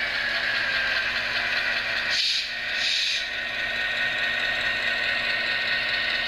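Intermountain HO-scale F7A model locomotive running on the track, its ESU LokSound decoder playing an EMD 567 diesel engine sound through the onboard speaker over a steady hum and hiss. Two short hisses come a little over two seconds in.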